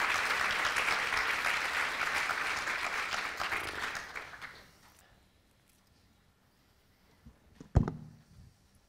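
Audience applauding, dying away after about four seconds. Near the end, a single sharp thump.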